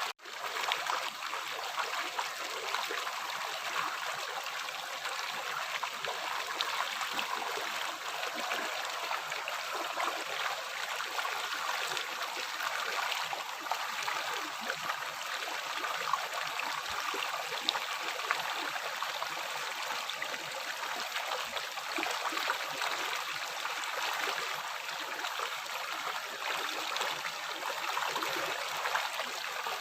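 River water flowing steadily, an even rushing and splashing hiss, with a momentary dropout at the very start.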